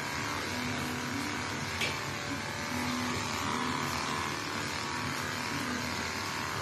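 Electric pet hair clipper running steadily as it shaves a long-haired cat's fur, with a low note in its hum that comes and goes.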